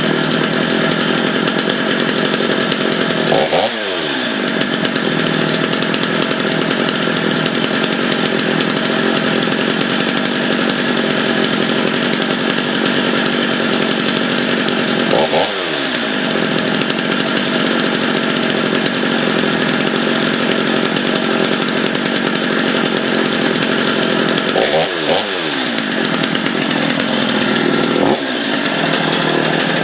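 Stihl MS 250 two-stroke chainsaw running at a raised idle, set high so it won't stall. It is blipped briefly up and back down a few seconds in, about halfway, and twice near the end.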